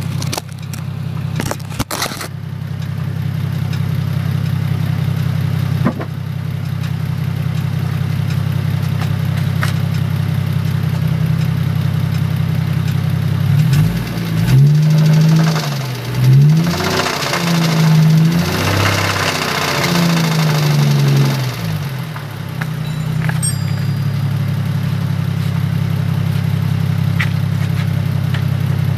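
Car engine idling steadily, then revved several times in quick rises and falls through the middle before settling back to idle. The owner is showing a knock (стук) in the engine.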